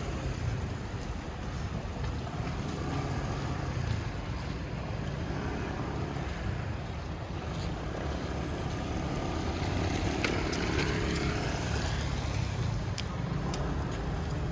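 Wet city-street ambience: a steady rumble of traffic under a hiss of rain and wet road, with a vehicle passing about ten seconds in. A few sharp clicks come near the end.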